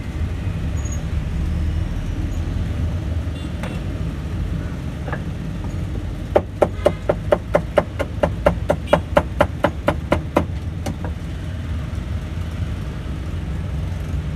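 Cleaver chopping crispy roast pork on a wooden chopping board: a quick run of about twenty knocks, some five a second, starting about six seconds in and stopping about four seconds later. A steady low rumble of street traffic runs underneath.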